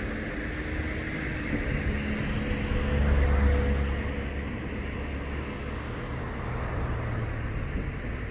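A motor vehicle engine running nearby, a low hum with a few steady tones that swells to its loudest about three seconds in and then eases off.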